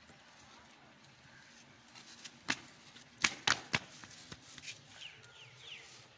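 Four sharp clicks, three of them in quick succession in the middle, against a low background, followed near the end by a few faint short high falling chirps.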